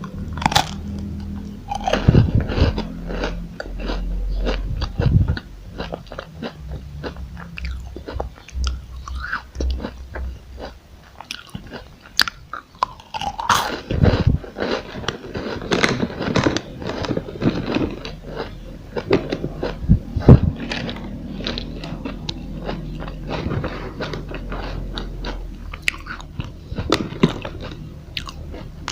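Close-up eating sounds of a crispy chocolate roll: irregular crunching bites and chewing, with sharp crackles scattered throughout.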